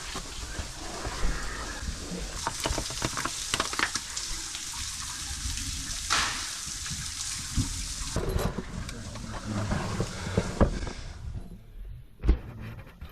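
Knocks, scrapes and rustling of a caver working through a tight rock crawl, over a steady rushing hiss that thins out about eleven seconds in.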